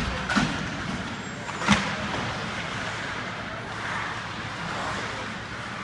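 Ice hockey play in an arena: steady rink noise with sharp clacks of stick and puck, three in the first two seconds, the loudest a little under two seconds in.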